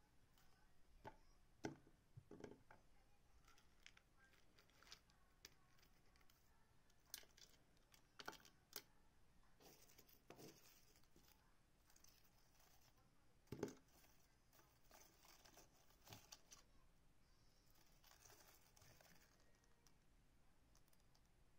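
Faint food-prep handling sounds: scattered light clicks, taps and rustles as lemongrass stalks are bent and handled on a cutting board and packed into a stainless steel pot, with one louder knock a little past halfway.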